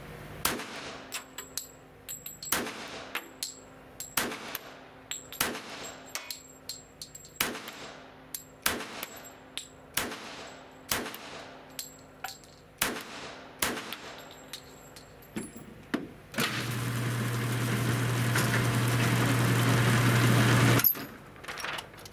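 A CZ 97 B .45 ACP pistol fired in a steady string of roughly a dozen shots, about one a second, each echoing in an indoor range. Then a motorized target carrier runs with a steady hum that grows louder, stopping abruptly near the end.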